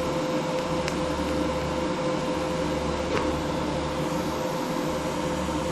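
Steady hum and hiss of a Primeweld 225X TIG welder running during a weld on mild steel, with two faint ticks about one and three seconds in.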